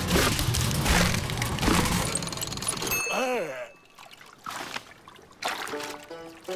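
Cartoon water sound effects: noisy splashing and churning for about three seconds, ending in a short wavering whistle-like tone, then quieter splashes.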